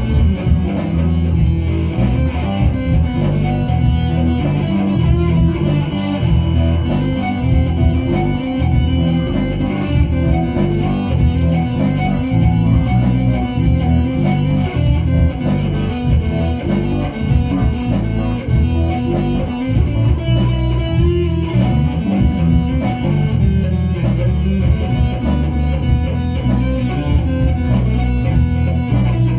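Electric guitar and bass guitar played together through amplifiers, a continuous riff with a strong low end.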